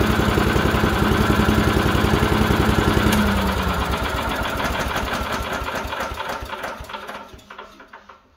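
Small single-cylinder gas engine on a DR Pilot 200 leaf vacuum running steadily, then switched off about three seconds in and winding down, its firing slowing and fading out over several seconds. It is a newly assembled machine on its first run, started on one pull.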